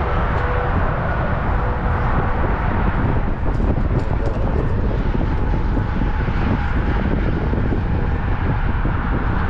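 Steady low rumble of a vehicle running, with a few faint clicks about four seconds in.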